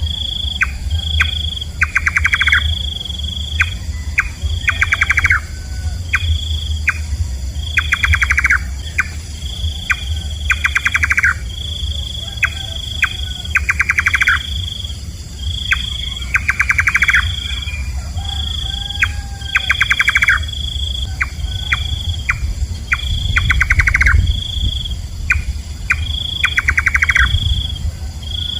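Nightjar calling: short rattling bursts of rapid clicks, repeated irregularly, over a short high note that repeats about once a second. A low rumble runs underneath.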